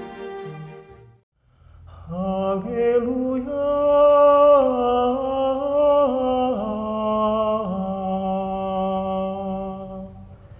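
The last notes of the preceding music die away in the first second. After a short pause, a solo male voice sings a slow Gregorian-style Alleluia, unaccompanied, in long held notes that step up and down, fading out near the end.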